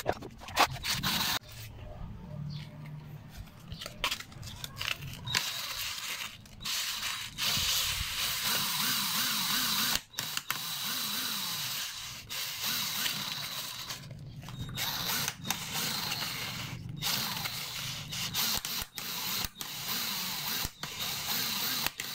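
Cordless drill spinning a Yamaha Sniper 150 engine valve in its chuck while dry sandpaper is pressed against the valve head, scraping off carbon deposits. The drill runs in repeated spells with short stops between them, and the sanding hiss grows stronger after about five seconds.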